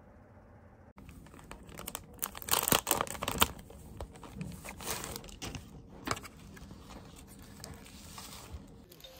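Paper sheets and plastic packaging rustling and crinkling as they are handled and pulled apart, starting about a second in and loudest a couple of seconds later.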